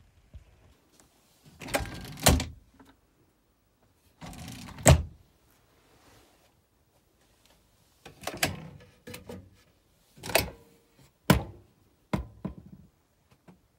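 Wooden drawers and cabinet doors in a motorhome being opened and pushed shut: short sliding rubs that end in a thunk, about seven knocks spread irregularly over the stretch.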